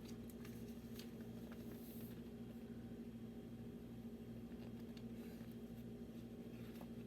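Quiet room tone: a steady low electrical hum with a few faint clicks and light rustles from handling.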